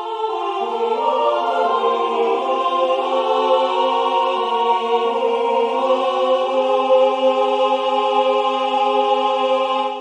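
Three-part choral voices singing a slow, sustained passage, the lines moving over long held notes into a final held chord. The chord cuts off near the end and dies away briefly.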